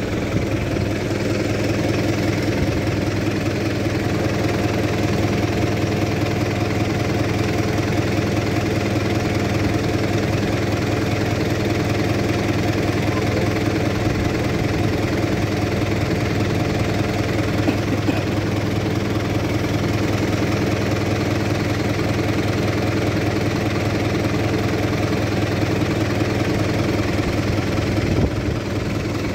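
Diesel tractor engine idling steadily, with an even, unbroken running note.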